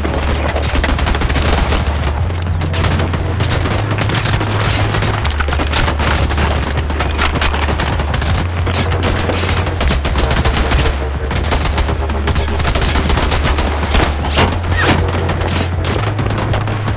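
Heavy, continuous gunfire from many guns at once: a dense battle mix of rapid shots with no break. A low drone underneath shifts pitch every few seconds.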